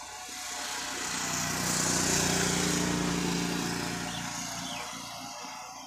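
A motor vehicle passing on the road: engine hum and road noise that swell to a peak about two seconds in, then fade away over the next few seconds.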